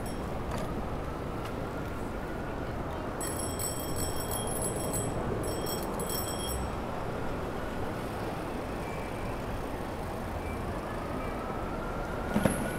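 Steady city street traffic noise heard from a moving bicycle, with a distant emergency siren slowly wailing up and down. About three and five seconds in come two spells of high metallic ringing, and near the end a short knock.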